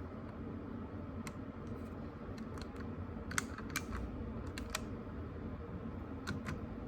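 A few scattered light clicks of thermostat buttons being pressed to switch the air conditioning on, over a low steady hum.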